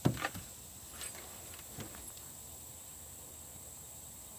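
Steady high drone of insects, with a few sharp clicks and knocks, the loudest right at the start.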